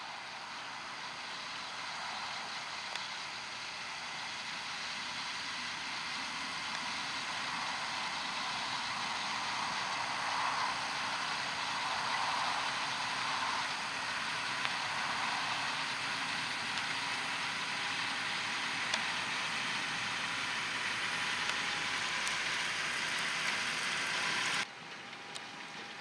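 John Deere 6250R tractor's six-cylinder diesel engine working under load as it pulls a seven-furrow reversible plough through stubble. It grows louder over the first ten seconds or so as the tractor comes closer, holds steady, then drops away suddenly about a second before the end.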